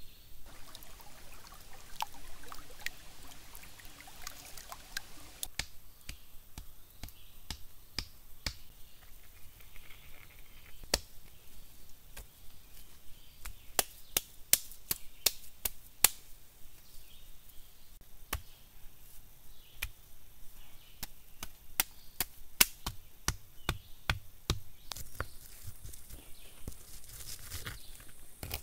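Irregular sharp knocks and clicks of hand work with stone, wood and clay, bunched together about halfway through and again in the last few seconds.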